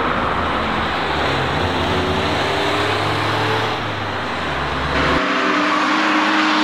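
Cars driving past on a race track, engines running over steady road and tyre noise. The sound changes abruptly about five seconds in, with the deep engine sound cutting out and a different engine note taking over.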